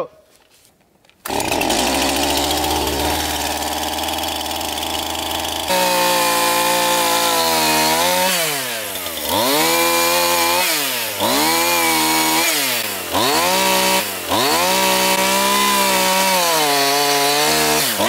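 Chainsaw running, coming in sharply about a second in, then held at high revs. Its pitch drops and climbs back several times as the throttle eases and picks up again.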